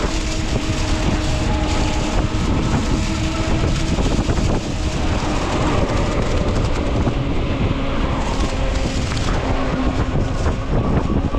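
Wind buffeting the microphone and road noise from a fat-tire electric bike being ridden, with a faint steady whine running underneath.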